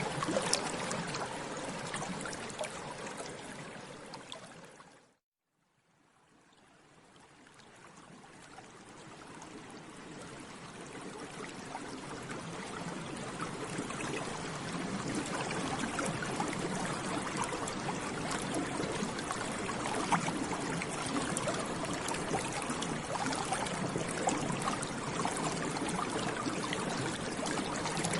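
Water bubbling steadily: a dense stream of small bubbles popping. It fades out to silence about five seconds in, then slowly fades back in over the next several seconds.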